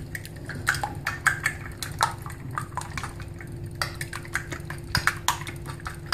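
Fork beating eggs in a ceramic plate: quick, irregular clinks and scrapes of the fork against the plate, over a steady low hum.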